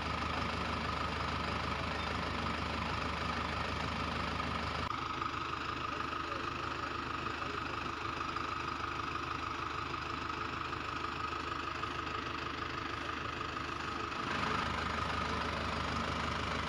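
A steady engine-like idling drone, changing abruptly in tone about five seconds in and again near the end.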